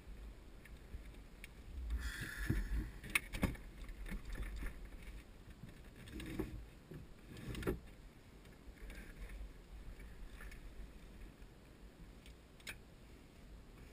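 Handling noises in a small plane's cockpit: scattered knocks and clicks, in a cluster about two to three seconds in and again around six to eight seconds, over a low wind rumble on the microphone.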